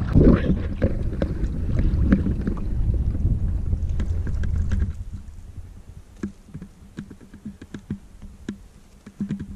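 Paddling a wooden canoe: wind buffeting the microphone over splashing water for the first half, then, about five seconds in, a sudden drop to calm water with scattered small drips and knocks from the paddle.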